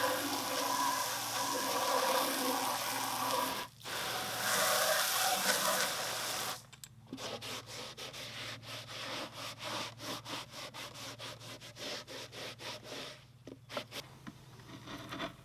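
Garden hose spraying water onto a dirty wooden beehive body, breaking off briefly near four seconds and stopping about six and a half seconds in. A towel then rubs the wet wood in quick, repeated strokes, with a few last scrapes near the end.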